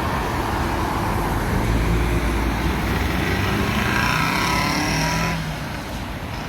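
A motor vehicle's engine running amid road traffic noise, with a steady low rumble that grows heavier about two seconds in. A brief high-pitched squeal or whine joins it about four seconds in and cuts off about a second later.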